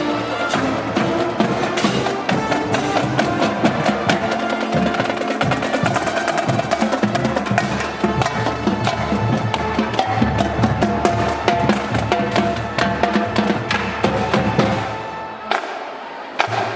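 Marching band playing at full volume, brass over snare and bass drums with fast drum strokes; the piece breaks off about a second before the end.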